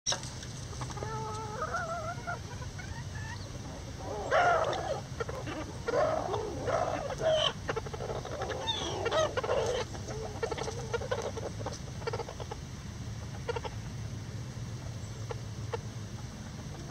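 A small flock of bantam chickens, lavender Old English Game among them, clucking and calling: a drawn-out wavering call about a second in, a busy stretch of short clucks and calls in the middle, then only scattered faint clicks near the end.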